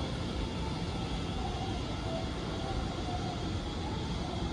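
Steady low rumble and hum of a railway station platform's ambience, even throughout with no distinct events.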